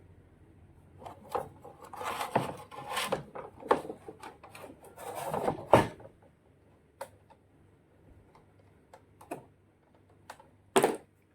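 Handling noises of tools and parts: irregular clicks, knocks and rubbing scrapes, busiest in the first half, then a few scattered ticks and one sharp click near the end.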